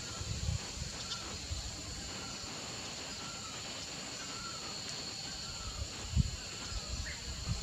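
Outdoor ambience: a steady high-pitched insect drone, with faint short chirps repeated about once a second and a low rumble underneath.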